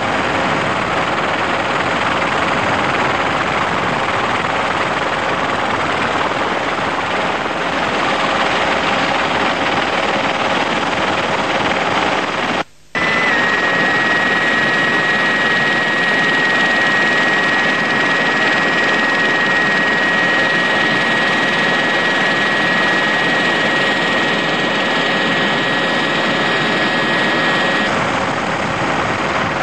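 Steady helicopter engine and rotor noise from inside the cabin. It cuts out for a moment about thirteen seconds in, and a steady high whine then runs over it until near the end.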